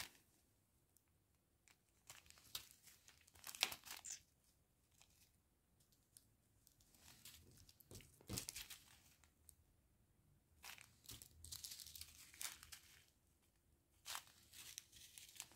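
Clear plastic packaging and small zip bags of diamond painting drills crinkling as they are handled, in scattered short bursts with quiet pauses between.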